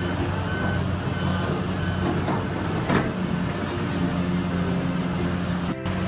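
Heavy diesel construction machinery running steadily, with a reversing alarm beeping a few times near the start. A few clanks sound over it, the loudest about three seconds in.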